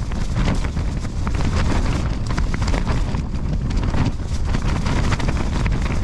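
Storm-force wind battering a collapsed tent, its fabric pressed down over the occupant and flapping in a rapid crackle, over a heavy low rumble of gusts hitting the microphone.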